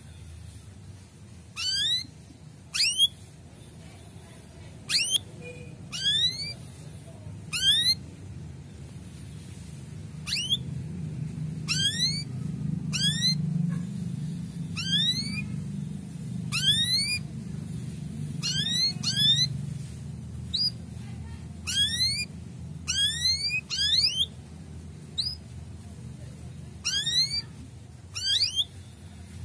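Male canary giving short, sharp 'cuit' chirps that sweep quickly upward in pitch, singly and in quick pairs, about one every second or two, over a low steady background rumble.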